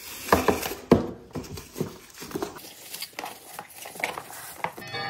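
A ribbon being untied and pulled off a cardboard gift box: a run of short rustles and soft knocks from hands handling the ribbon and box, busiest in the first second.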